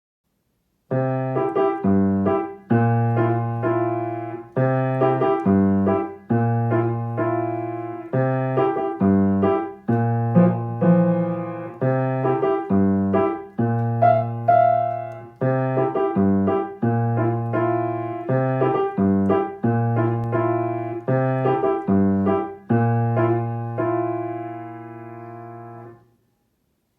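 Piano playing a short, quirky effect tune for odd, funny movements in children's play: short repeated phrases of chords over low bass notes, ending on a held chord that dies away shortly before the end.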